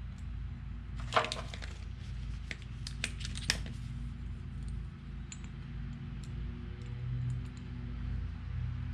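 Small metal parts clinking as they are handled, a handful of light sharp clicks with the loudest about a second in, over a steady low hum.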